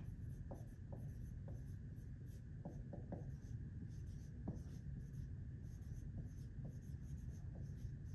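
Dry-erase marker writing on a whiteboard: faint, irregular short strokes and taps as words are written out.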